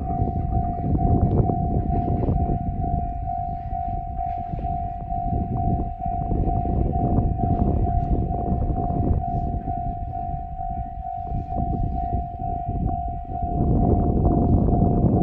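Japanese railway level-crossing bell of the JR Central electronic type, ringing a steady, rapid, evenly repeated ding on one high tone, warning that a train is coming. A loud low rumble runs under it and grows louder again near the end.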